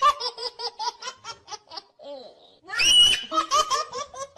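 A person laughing hard in quick ha-ha-ha pulses, breaking into a high squeal about three seconds in, then laughing on.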